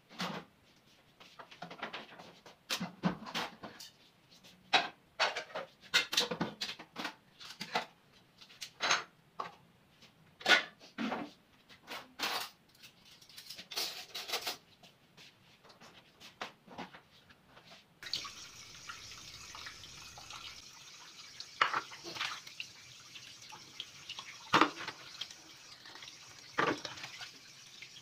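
Kitchenware clattering: plastic and metal dishes and utensils knocked together and set one by one onto a wire dish rack. About two thirds of the way through, this changes to a steady rush of running water at a sink, with plates clinking as they are washed.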